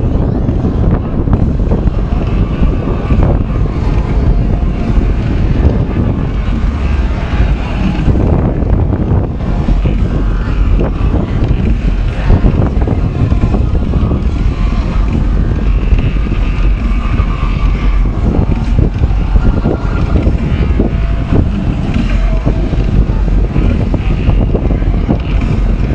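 Wind buffeting the microphone: a loud, steady low rumble that covers everything, with fainter, uneven harbour sounds above it.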